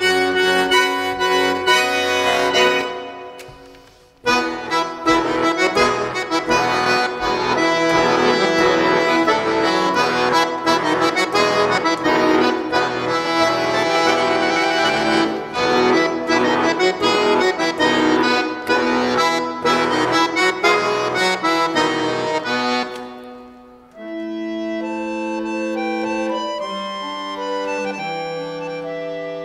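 Jupiter bayan (chromatic button accordion) played solo. Fast, dense passages break off about three seconds in, resume after a short pause and run until about 23 seconds. Then they give way to slower held chords that step lower.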